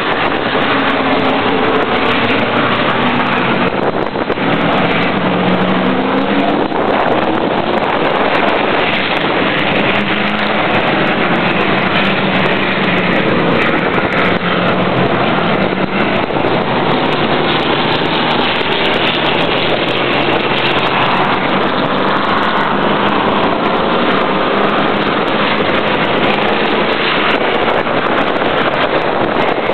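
Late model race car engine running hard at speed around an oval track, its pitch rising and falling as it goes through the turns and straights.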